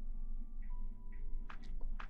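Close-miked ASMR crackling and clicking that begins about one and a half seconds in, over a low steady hum.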